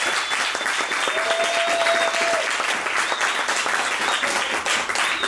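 Audience applauding steadily, with a couple of long held whoops and a high whistle over the clapping.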